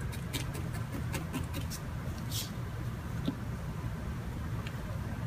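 Felting needle stabbing wool into a foam pad: soft, irregular scratchy pokes over a low steady hum.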